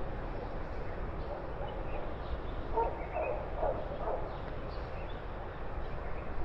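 A dog barking faintly, a few short barks about three seconds in, over a steady low outdoor rumble.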